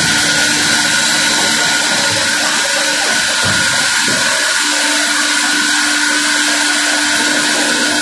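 Large Üstün Karlı band sawmill running steadily while its blade saws a slab off a big walnut log, a continuous loud whine and hiss. A lower steady hum joins about halfway through.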